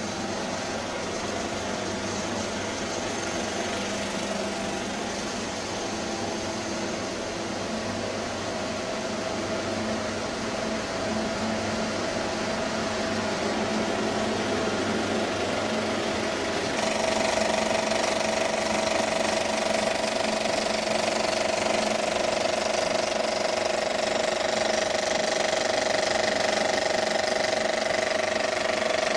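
Machinery in a 35mm film projection room running steadily, with a hum made of several held tones. About two-thirds of the way through it gets louder, with a stronger mid-pitched tone and more hiss.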